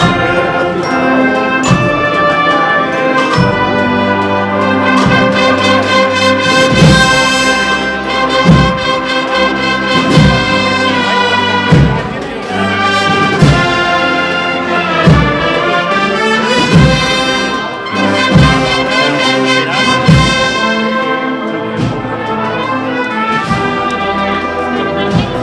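An Andalusian agrupación musical, a procession band of trumpets, trombones and other brass with drums, playing a processional march. The brass holds the melody over the percussion, with a heavy drum stroke about every one and a half to two seconds.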